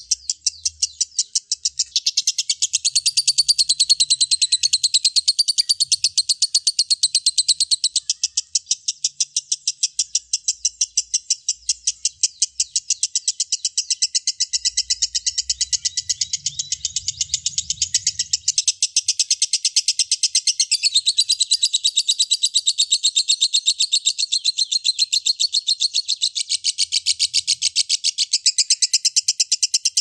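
Lovebird singing: an unbroken, rapid run of shrill, high chirps, about five a second.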